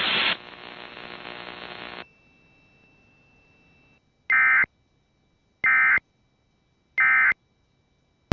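Radio static hiss that cuts off about two seconds in. Then three short, identical buzzy data bursts a little over a second apart: the Emergency Alert System end-of-message tones that close the warning broadcast.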